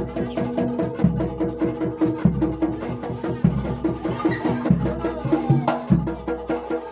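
Jaranan Dor ensemble music: rapid percussion strikes over sustained pitched tones, with a deep jidor bass drum booming about once a second.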